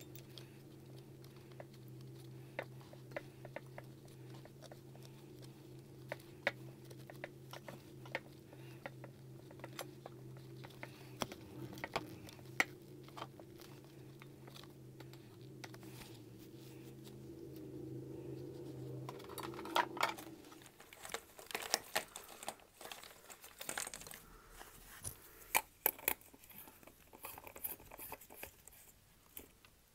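Gloved hands handling a metal lamp shade and fitting a small plastic cap into its socket: scattered light clicks, scrapes and rustling, getting busier and louder about two-thirds of the way in. A steady low hum runs underneath and stops at about the same point.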